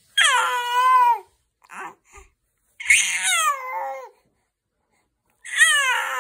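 Infant vocalizing: three long, high calls, each falling in pitch, the last still going at the end.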